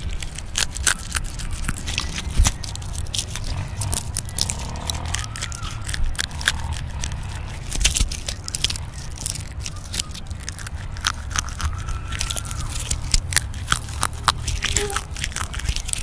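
Something small and dry, picked from the forest floor at the foot of a pine tree, rubbed and crumbled between fingertips right at a condenser microphone for ASMR: dense, irregular crisp crackles and crunches.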